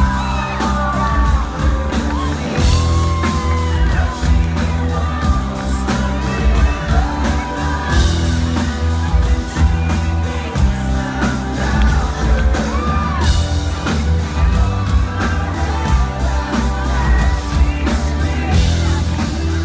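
Rock band playing live, with a male lead singer, electric guitar and drums over a steady beat, heard from within the audience, with scattered whoops and shouts from the crowd.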